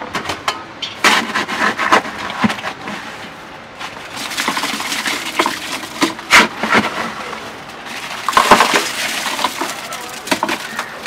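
Crushed ice tipped from an aluminium basin into a plastic bucket of lemon-mint juice, the pieces clattering and splashing, with louder rushes about halfway and again near the end.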